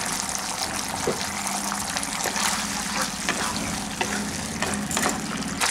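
Sauce mixture with vinegar sizzling and bubbling steadily in a hot pan, over a low steady hum.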